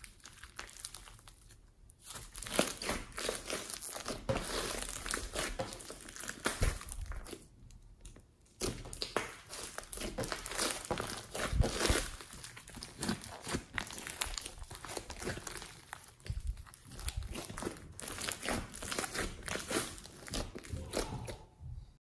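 Hands kneading and squeezing a large lump of slime mixed with small foam beads: a dense run of small pops and clicks as the slime is pressed and stretched, with short pauses about two seconds in and about eight seconds in.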